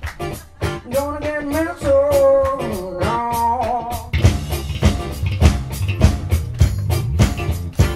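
Live blues played on a double-neck electric guitar with a drum beat and a strong bass line. For the first few seconds a bending, wavering melodic line carries the tune, then steady drum hits take over from about four seconds in.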